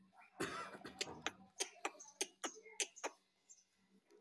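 Indian ringneck parrot making a rough, cough-like rasp followed by a string of about nine short sharp clicks, roughly three a second.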